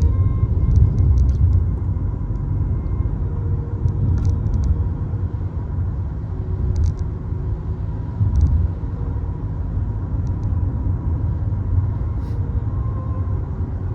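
Steady low road and engine rumble inside the cabin of a moving Peugeot 3008, with a few faint clicks.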